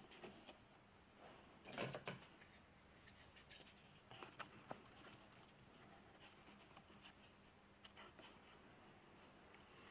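Near silence broken by a few faint wooden taps and clicks as small carved wooden pieces are handled and set against a wooden model, wood on wood. The clearest cluster comes about two seconds in, with lighter clicks around four to five seconds and near eight seconds.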